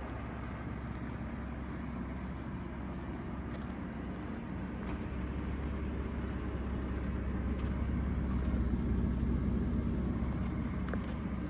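Ford F-150's 3.5-litre V6 idling steadily, growing a little louder about halfway through and easing back near the end.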